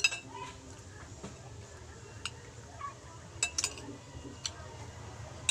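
Cutlery clinking against a plate while eating: a sharp clink at the start, one about two seconds in, a quick pair around three and a half seconds, one near four and a half and one at the end.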